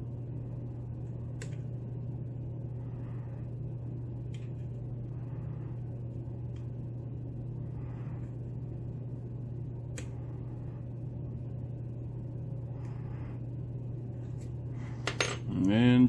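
A lock pick probing the pin stacks of a Falcon lock cylinder: a few faint, sharp metallic ticks and light scraping, under a steady low hum.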